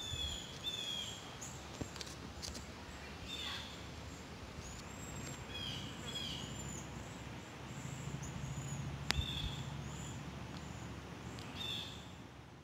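Songbirds in woodland giving short chirps and quick downward-sliding whistled notes, repeated every second or so, over a steady low background rumble. There is one sharp click about nine seconds in.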